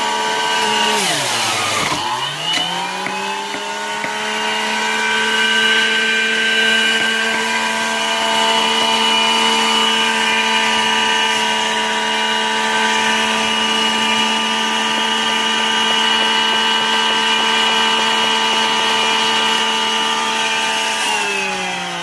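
Electric juicer motor running with a steady high whine. About a second in the pitch briefly dips and then recovers, and near the end it starts to fall.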